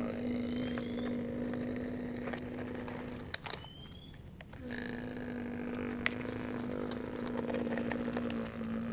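Small electric motor of a radio-controlled construction model running with a steady buzzing hum, stopping for about a second and a half midway and then starting again, with a few sharp clicks.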